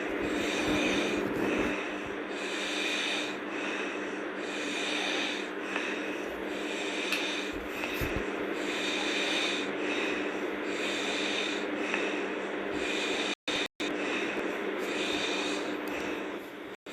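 A sleeping person snoring hard, a rough snort with each breath, repeating in a steady rhythm about once a second. The sound cuts out briefly twice near the end.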